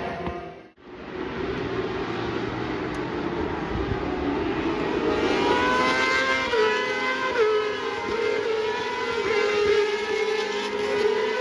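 Racing superbike engines running hard at high revs. Their pitch climbs and then drops in sudden steps with each upshift, several times over the last half. The sound cuts out briefly under a second in.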